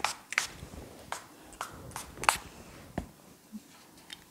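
A series of sharp, irregularly spaced slaps and clicks made by hands, about eight in all, the loudest a little past two seconds in.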